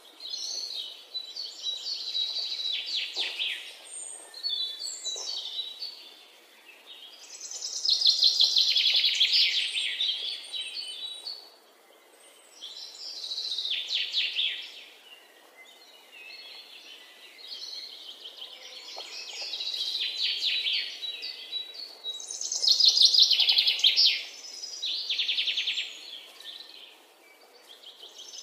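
Many birds chirping together in a dense chatter that swells and fades several times, loudest about eight and twenty-three seconds in.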